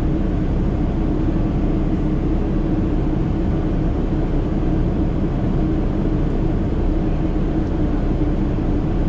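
Cabin noise of a Boeing 777-300ER climbing out after takeoff: its GE90 turbofan engines and the rushing airflow make a steady noise with a constant hum.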